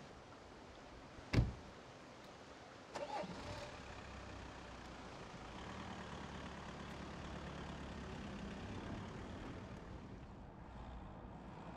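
A car door slams shut once, about a second in. About three seconds in, the Volkswagen Passat's engine is cranked and catches, then runs steadily and swells a little as the car pulls away.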